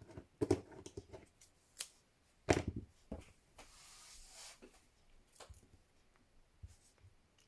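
Handling noises: a scatter of light clicks, taps and rustles as embroidery thread and sewing things are picked up and handled, with the sharpest knock about two and a half seconds in.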